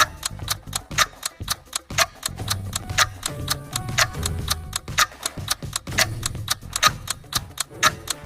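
Countdown-timer clock ticking sound effect: fast, even ticks, several a second.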